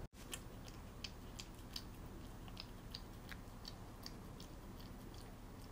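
Siamese cat lapping and licking soft wet food from a ceramic bowl: faint, wet tongue clicks, about three a second.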